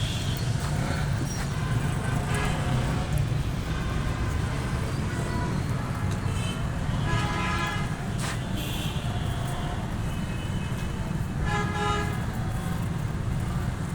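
Goat kids bleating in short calls, about three times, over a steady low rumble.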